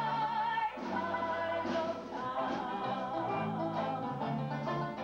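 Banjo band playing live. A long wavering note is held through the first second or so over changing bass notes.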